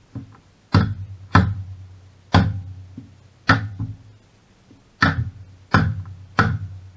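Hammer blows on the metal parts of a Briggs & Stratton generator engine whose connecting rod is seized, struck to free it. There are seven sharp strikes, about one a second with a short pause in the middle, and each rings briefly.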